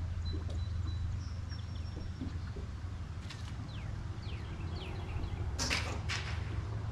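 Small birds chirping, short falling chirps and a few thin whistles, over a steady low hum. Two short sharp rustling noises about two-thirds of the way through are the loudest sounds.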